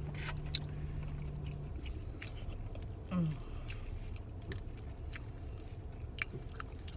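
Close-up chewing and mouth sounds of someone eating lemon cake: scattered small wet clicks and smacks, with a short voiced "mm" about three seconds in. A low steady hum runs underneath.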